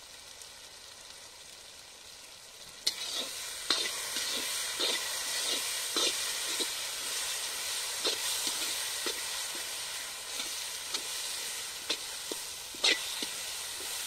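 Onion-tomato masala sizzling in an iron kadai over a wood fire. About three seconds in, a metal spatula starts stirring it, scraping and knocking against the pan in irregular clicks over the steady frying hiss.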